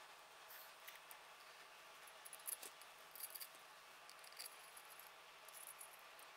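Near silence, broken by a few faint small metallic clicks and taps of a spanner and pin being fitted to a milling spindle's collet nut.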